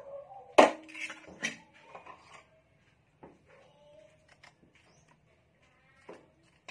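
Kitchen knives and utensils clattering while a smaller knife is fetched: one loud metallic clank with a short ring about half a second in, then a few lighter knocks and clicks.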